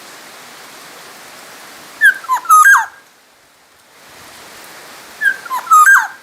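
Black-naped oriole singing: two short, fluty phrases about three seconds apart, each a few whistled notes sliding down and back up, over a steady hiss.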